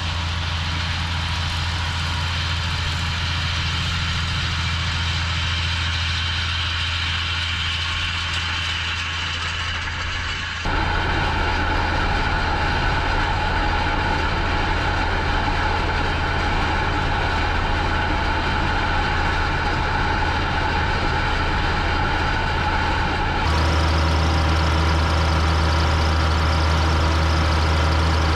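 Ford TW-20 tractor's six-cylinder turbo diesel engine running steadily under load while pulling a set of rolls. The engine sound changes abruptly twice, about ten seconds in and near the end.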